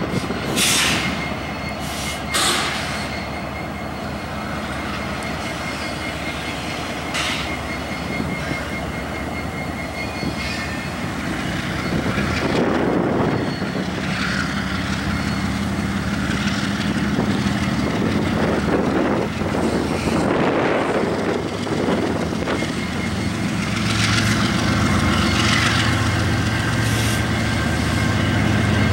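Freight train rolling past with diesel locomotives running: a steady rumble of wheels on rail, with thin squeals of wheel flanges and a few sharp clanks from the cars. A low diesel drone grows louder in the second half.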